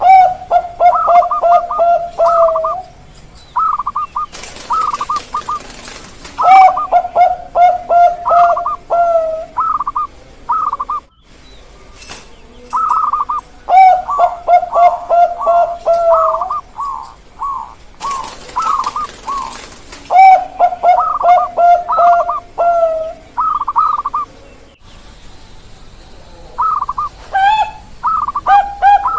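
Bangkok-type perkutut (zebra dove) singing: phrase after phrase of quick, clipped cooing notes, each phrase a couple of seconds long and repeated every few seconds.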